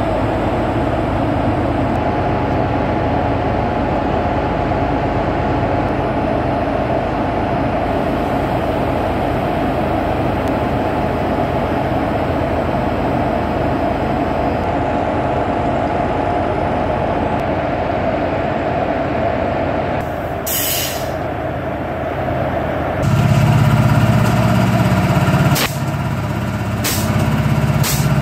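Steady hum of a WAG-7 electric locomotive standing with its on-board machinery running. About 23 seconds in, the sound turns louder and deeper as the machine-room equipment, including the reciprocating air compressor, is heard up close, with a few sharp clicks near the end.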